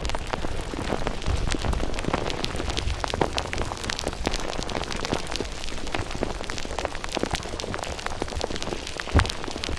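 Dense splashing, crackling noise of water, with low rumbles underneath and one sharp thump near the end.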